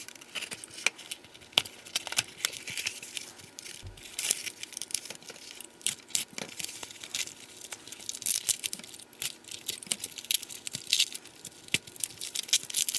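Unboxing: a utility knife slicing packing tape, cardboard handled, and foam wrapping pulled off, giving irregular scratching, tearing and crinkling.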